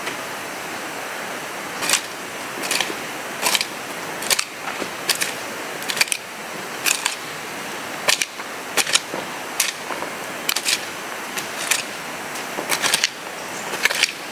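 A series of sharp knocks or strikes at an irregular pace of roughly one or two a second, over a steady hiss.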